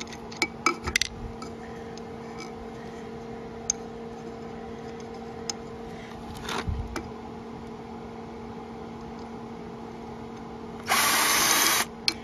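A power drill runs for about a second near the end, backing out the reverse-threaded diffuser screw of a Jandy Stealth pool pump. Before it come a few light clicks and knocks of tools being handled, over a steady low hum.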